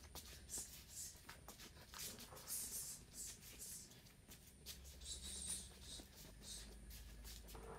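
Faint sounds of a man shadow boxing: short hissing breaths with the punches, a few every second or two, with light scuffs and clicks of his footwork.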